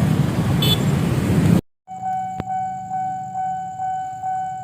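A loaded container freight train running past with a steady heavy rumble; about two seconds in, after a cut, a railway level-crossing warning alarm sounds, an electronic tone pulsing about twice a second.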